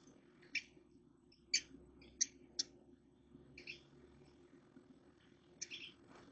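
Small birds giving about six short, sharp high chirps at uneven intervals, over a faint steady low hum.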